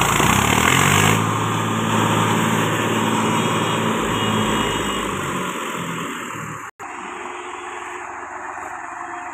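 Mahindra 275 DI tractor's three-cylinder diesel engine running hard as it hauls a loaded mud trolley, revving up slightly in the first second and then holding steady before fading. After an abrupt cut about two-thirds of the way in, quieter engine noise of machinery working further off.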